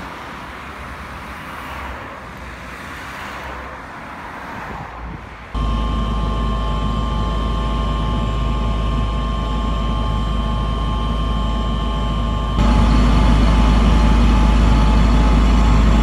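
Cars passing on a road for about the first five seconds. Then a loud, steady rumble with a constant faint whine, which jumps louder a few seconds later.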